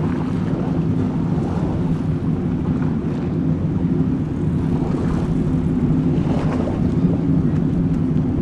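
Engines of several powerboats running at high speed as they pass in a group, a steady pitched drone.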